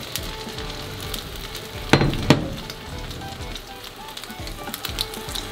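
Egg, green onion and tuna mixture sizzling in an oiled square tamagoyaki pan over a gas flame as the last of it goes in, with two quick knocks about two seconds in.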